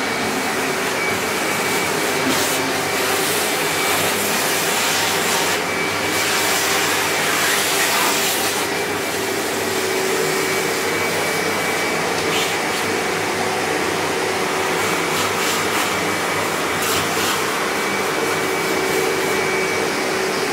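Canister vacuum cleaner running steadily with a constant high motor whine, its crevice nozzle sucking dust out of a wall socket box, with a few brief clatters of the nozzle.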